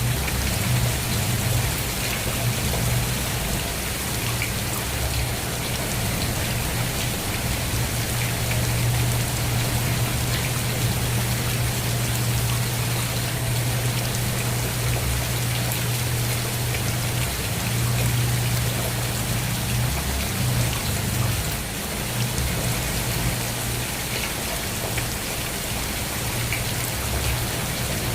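Steady rain falling, an even hiss of drops with a constant low rumble underneath.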